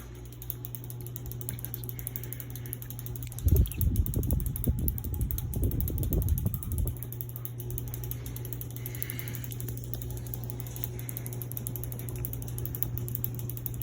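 Hunter Savoy ceiling fan running, with a steady low motor hum. A few seconds in there is a stretch of low rumbling buffets lasting about three seconds.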